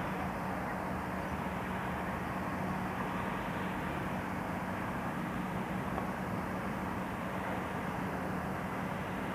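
Steady town ambience: an even, distant traffic drone with a constant low hum underneath.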